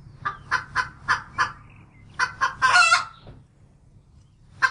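Recorded hen clucking: about five short clucks in quick succession, then one longer, drawn-out call about two seconds in.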